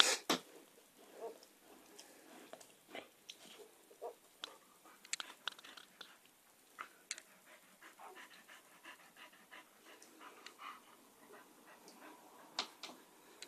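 Portuguese water dog mother and her newborn puppies: faint short squeaks and soft panting among scattered small clicks and rustles, with a louder knock right at the start.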